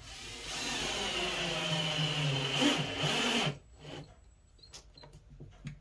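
Milwaukee M18 cordless drill/driver running steadily for about three and a half seconds as it drives a screw through the drawer box into the drawer face, then stopping abruptly. A few light clicks follow.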